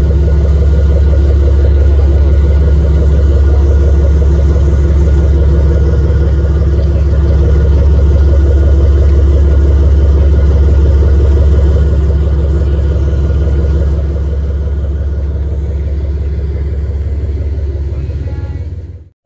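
Moored tour boat's engine idling with a steady low drone, somewhat quieter from about twelve seconds in.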